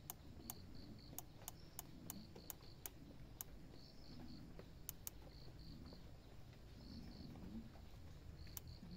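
Insects chirping in short pulsed bursts of three or four, with faint sharp ticks at irregular intervals, most of them in the first few seconds.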